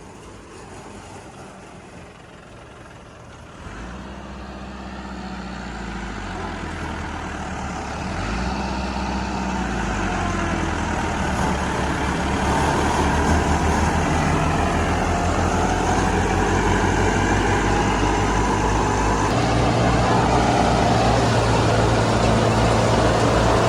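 Massey Ferguson 385 tractor's diesel engine starting to sound a few seconds in, then running and growing steadily louder, its note changing in a few steps as the pace or load picks up.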